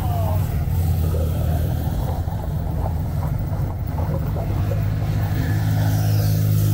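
Motorhome's engine and road noise heard from inside the cab while driving: a steady low drone.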